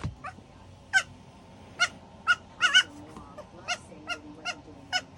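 Four-week-old baby goat making a series of short, high-pitched bleats and squeaks, about two a second, some of them wavering in pitch.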